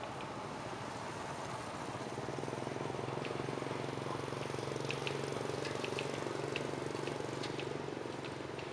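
Low engine hum, likely a passing vehicle, that swells over a few seconds and then eases off, with scattered short high clicks or chirps over it.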